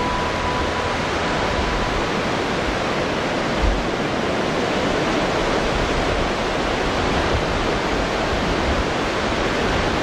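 Ocean surf breaking and washing up a flat sandy beach, a steady rushing noise.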